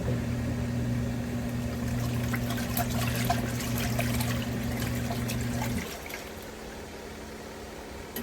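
Portable twin-tub washing machine running: a steady motor hum with water swishing in the tub. The hum stops about six seconds in, leaving a quieter wash of water, and starts again right at the end.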